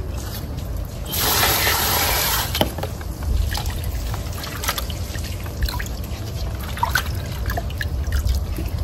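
Water splashing and dripping as water hyacinth plants are rinsed and lifted out of a plastic basin of water fed by a garden hose. About a second in, a loud rush of running water lasts a second and a half, and then there are scattered drips and small splashes.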